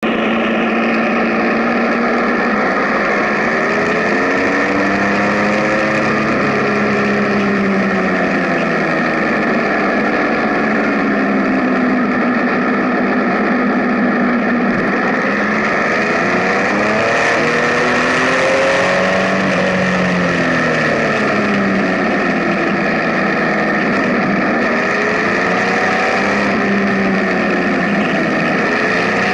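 Benelli Tornado Tre 1130 TNT's inline three-cylinder engine running, its pitch rising and falling repeatedly as the throttle opens and closes.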